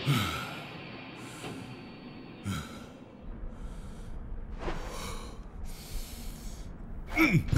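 Cartoon character's breathy puffs and sniffs, about six short breaths roughly a second apart, with a short louder vocal sound near the end.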